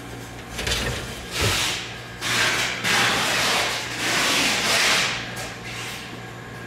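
A gloved hand wiping across a plastic cutting board, making a run of rubbing swishes over about five seconds, with a steady low hum underneath.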